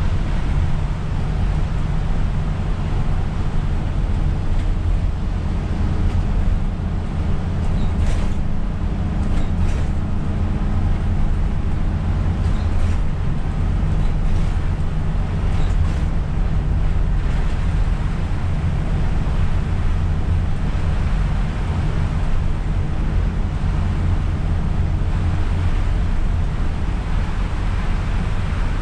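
Isuzu Erga city bus driving on a wet road, heard from the driver's seat: a steady low drone of engine and road noise with tyre hiss from the wet tarmac. A few faint ticks come through around the middle.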